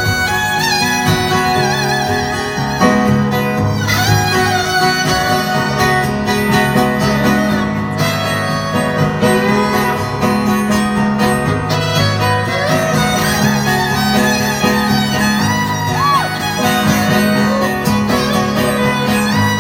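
Live country-folk band playing an instrumental break: a fiddle carries the lead line with vibrato over strummed acoustic guitar and bass.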